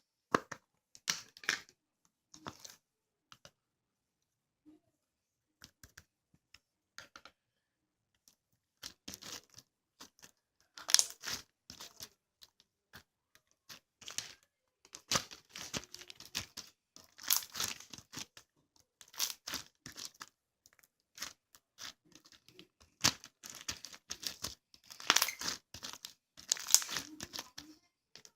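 Intermittent crinkling and tearing rustles from something being handled, in short irregular clusters with pauses, busier and louder in the second half.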